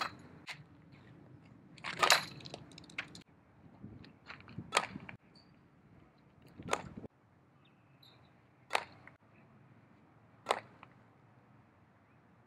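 Softball bat striking a softball in batting practice: five sharp hits, one about every two seconds.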